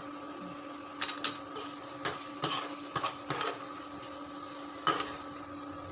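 A metal spoon stirring tomato sauce in a stone-coated frying pan, knocking and scraping against the pan in a series of sharp clinks about half a second to a second apart. A steady hum from the induction cooktop runs underneath.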